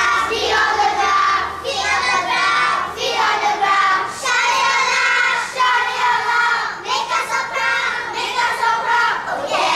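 A group of young children singing together in unison, in short phrases.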